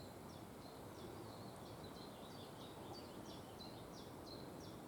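A small songbird singing faintly: a steady run of short, high notes, each sliding down in pitch, about three a second.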